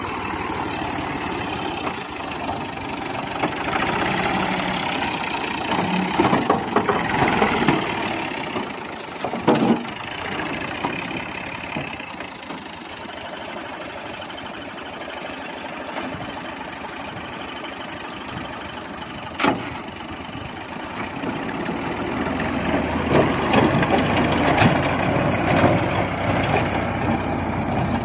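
Ghazi tractor's engine running with its rear-mounted rotavator churning into soil, getting louder over the last several seconds, with a couple of sharp clicks.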